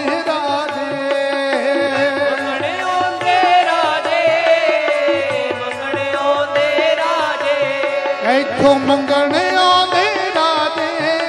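Instrumental interlude of a live devotional song: a wavering melody over a steady held drone, with a drum beat underneath that drops out briefly near the end.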